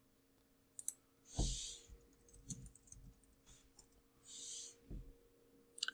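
Quiet pause in a small room with a low steady hum: a few scattered soft clicks and two short soft breath-like hisses.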